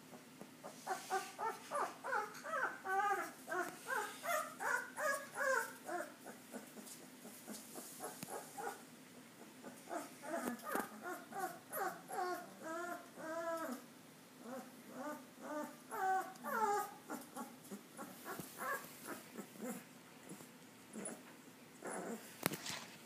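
Young puppies whimpering and squealing: rapid runs of short, high, rising-and-falling cries in bouts, loudest in the first six seconds, fainter and more scattered later. A single sharp knock near the end.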